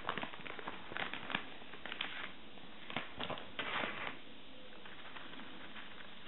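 Clear plastic snack bag crinkling and crackling as it is handled and a tray of senbei is slid out of it, a run of sharp rustles that stops about four seconds in.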